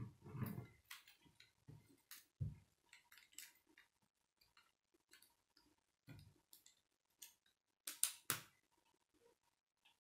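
Plastic K'nex rods and connectors being handled and snapped together: scattered faint clicks and taps with a few soft knocks, and two sharper snaps in quick succession about eight seconds in.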